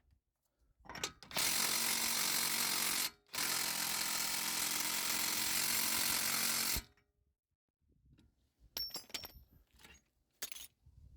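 Impact wrench hammering in two long bursts, tightening the new front wheel bearing on a BMW E36, with the gun set to 400.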